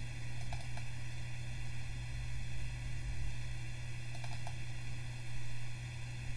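Steady low hum with a few soft computer clicks in two small clusters, about half a second in and again about four seconds in, as a cabinet entry is picked in an estimating program's index.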